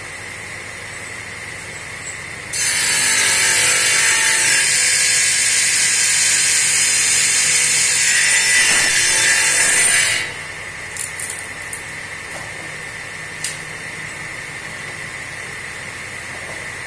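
Table saw running with a steady high whine, then its blade cutting through a wooden leg blank for about seven and a half seconds, starting about two and a half seconds in and cutting off sharply. The saw keeps running after the cut, with a few light knocks.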